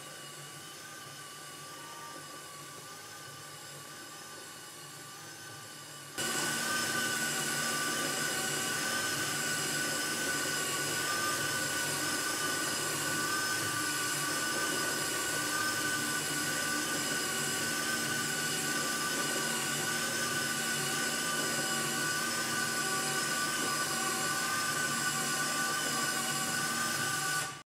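Motors of an Arduino-driven toy CT scanner running: the stepper motor that slides the table and the small motor that turns the ring. A steady mechanical whine with several fixed high tones, growing much louder about six seconds in and cutting off abruptly near the end.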